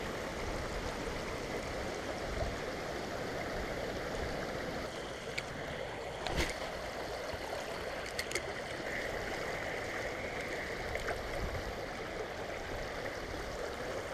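Creek water rushing steadily over a shallow rocky riffle, with a few faint clicks in the middle.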